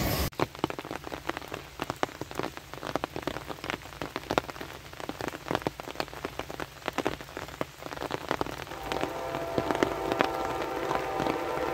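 Rain falling, with drops tapping in quick, irregular ticks close to the microphone. About three-quarters of the way through, a train horn begins sounding faintly, several steady notes at once.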